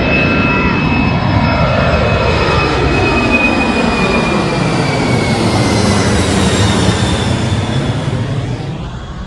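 Jet airliner passing low overhead: loud engine noise with a whine that slowly falls in pitch as the plane goes by, fading away near the end.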